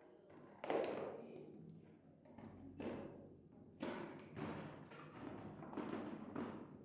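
A series of soft, irregularly spaced thumps and knocks, about eight in all, the sharpest one a little under a second in.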